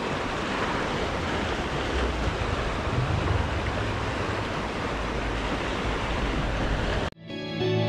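Steady rush of river water flowing past, with low wind rumble on the microphone. About seven seconds in it cuts off abruptly and guitar music begins.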